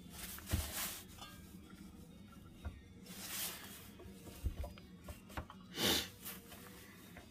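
Quiet handling noise: three short rustles and a few light knocks, over faint background music.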